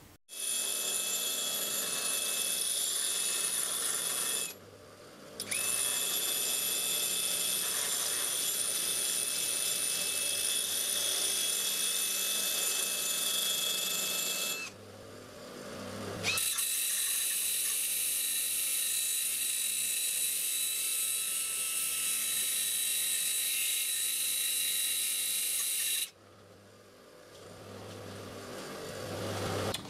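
A 3/8 steel bolt head spun in a cordless drill and ground round against a Craftmaster 200 mm bench grinder wheel: a steady high whine with grinding hiss. It runs in three long stretches, with short breaks about five and fifteen seconds in, and stops a few seconds before the end.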